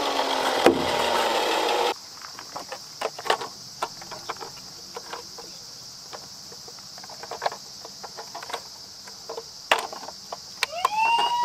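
A loud, steady noisy sound that cuts off abruptly about two seconds in. Then soft clicks and knocks of a plastic toy ambulance being handled. Near the end the toy's electronic siren switches on, a tone that rises and levels off into a steady hoot.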